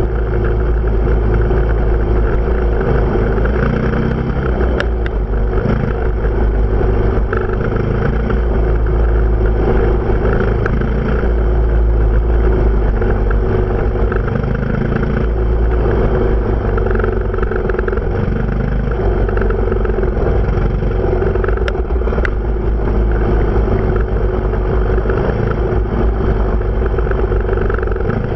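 Dirt bike engine running steadily under way on a rough trail, with heavy wind rumble on the microphone.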